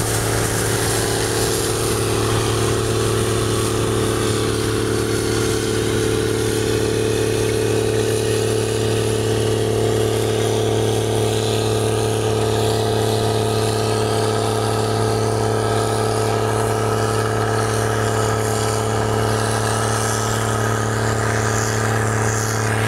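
Steady engine drone, holding one pitch with a strong low hum.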